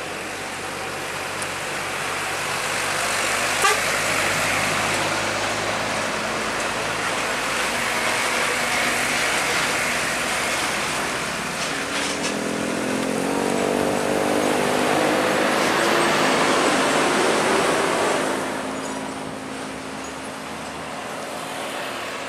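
Heavy container trucks' diesel engines running with road and tyre noise as they drive past. About 12 seconds in, one engine's note rises as the truck accelerates, and it fades after about 18 seconds. A single sharp knock sounds about 4 seconds in.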